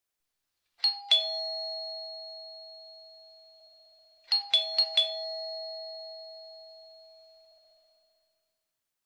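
Two-tone doorbell chime ringing ding-dong twice: a high note then a lower one, each left to ring out for a few seconds. The second ding-dong comes about three and a half seconds after the first, with several quick strikes in a row.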